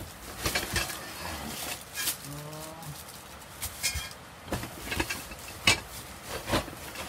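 Cardboard box and packing being handled and rummaged through, with sharp crackles and rustles several times. A short voiced sound comes about two and a half seconds in.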